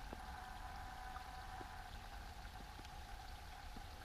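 A small creek trickling steadily through a snowy ravine, shallow water babbling over its bed with a few faint drips.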